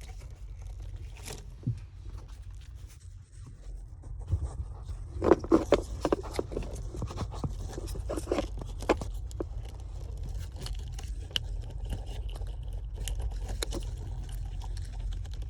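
Plastic wiring connectors of a car alarm harness being worked and pulled apart by hand: scraping and sharp clicks, densest from about five to nine seconds in, then lighter ticks. The connector is stubborn and hard to release.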